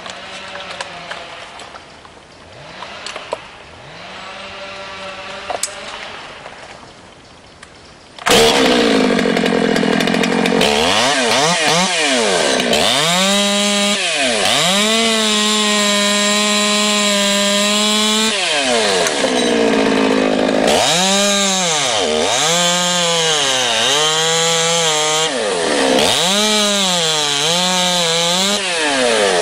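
Stihl top-handled chainsaw, fitted with a freshly sharpened Oregon PowerSharp chain, running quietly at first, then opened up about eight seconds in and cutting wood. The engine pitch dips and recovers over and over as the chain bites in under load.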